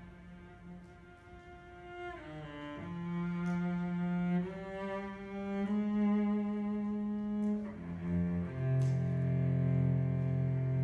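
Solo cello playing slow, sustained bowed notes: quiet at first, with a downward slide about two seconds in, then rising step by step and growing louder. Near the end it bows two strings at once, sounding two low notes together.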